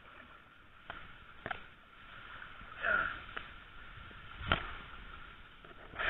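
Tall grass rustling and brushing against the microphone as people push through dense stalks, with a few short snaps and swishes about one, one and a half, three and four and a half seconds in. A faint steady high tone lies underneath.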